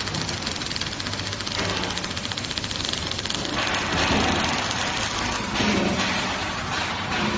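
Welding robot's arc crackling steadily as the torch lays a weld, over a low machine hum, with louder surges about four and six seconds in.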